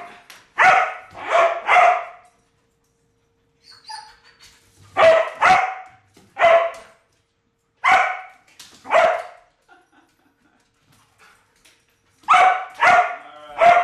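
Border Collie barking in short, loud barks: three quick ones at the start, a scattered run of single and paired barks after a pause, and three more near the end.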